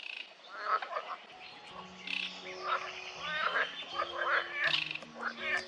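Many birds calling and chirping, with short repeated notes and trills, over soft background music of slow held low notes.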